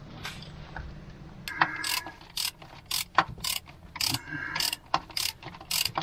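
A hand ratchet wrench being worked on a bolt: a run of sharp clicks, about two to three a second, starting about a second and a half in.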